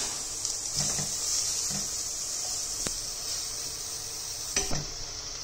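Diced onion sizzling in olive oil in a stainless steel saucepan, stirred with a wooden spoon that knocks against the pan a few times.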